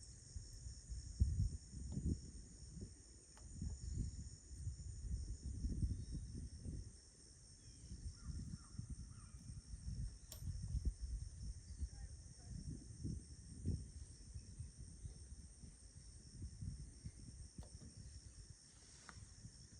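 Insects trilling steadily at a high pitch, under an irregular low rumble that swells and fades every second or so.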